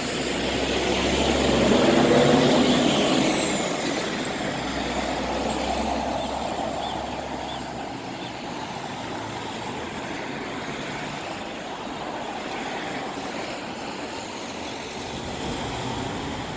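Road traffic: a vehicle passes close by, loudest about two seconds in, then fades into steady traffic noise with a low rumble that dies away about halfway through.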